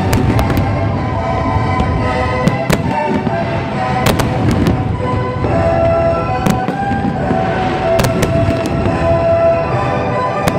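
Fireworks display bursting, with a rapid run of sharp bangs and crackles over a continuous rumble, mixed with music carrying long held notes.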